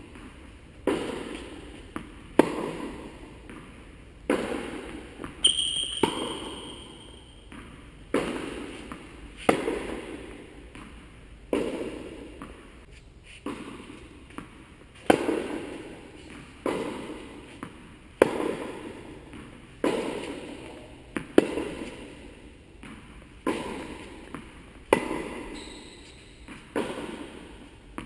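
Tennis rally: the ball is struck by rackets and bounces on the court, sharp hits about every one to two seconds, each ringing on in the echo of a large indoor tennis hall.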